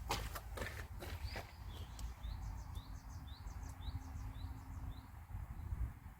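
A small bird chirping repeatedly, short high chirps about two a second, after a few knocks near the start, over a low rumble.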